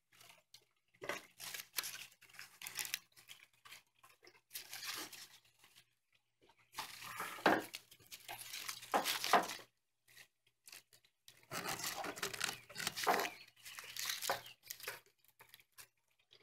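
Dry phragmites reed stalks rustling and crackling as they are handled and tied into a bundle with twine, coming in irregular bursts with short pauses between.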